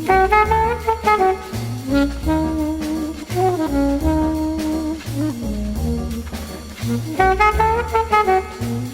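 Background jazz music: a brass-like melody plays over a rhythmic bass line.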